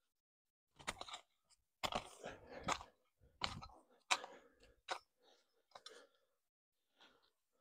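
Garden hoe biting into and dragging loose soil, a series of irregular gritty crunching scrapes roughly a second apart, as earth is pulled back around a newly planted banana sucker.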